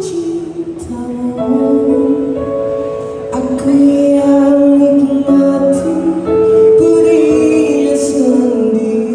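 A man singing a slow ballad in long held notes while accompanying himself on a Yamaha electric keyboard, the voice sliding down near the end.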